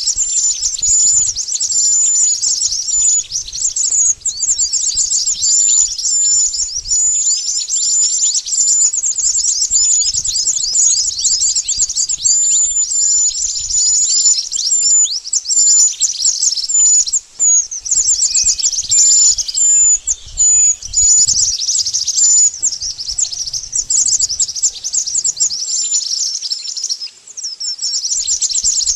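Bird-lure recording of burung mantenan calls: a fast, unbroken stream of high, downward-slurred chirps, several birds twittering at once, with a short high note repeated over the top.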